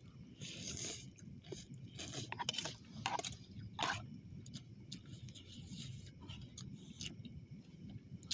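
People eating instant noodles at close range: chewing with scattered short clicks and scrapes, busiest in the first four seconds, over a steady low hum.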